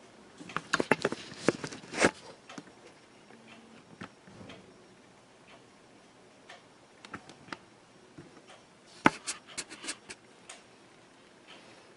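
Scattered light clicks and taps in two clusters, one near the start and one about nine seconds in, over faint room tone.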